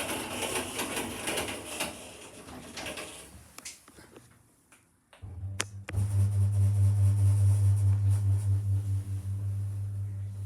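Passenger lift setting off: a few seconds of hiss and rattle fade to near quiet, two sharp clicks come about five and a half seconds in, and then the lift's drive motor starts up and runs with a loud, steady low hum.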